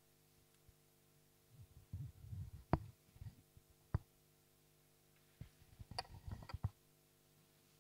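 Faint scattered low thumps and a few sharp clicks in two clusters, the loudest clicks about three and four seconds in, over a steady low hum.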